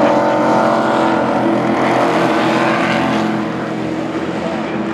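Pro Truck race trucks' engines running at racing speed as a pack goes by, several engine notes overlapping. The sound eases a little after about three seconds.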